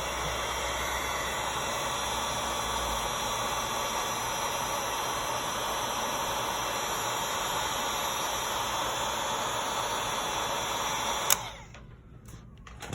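Handheld hot-air blower running with a steady rush of air, heating a glued phone part to soften the adhesive and loosen it; it cuts off with a click near the end.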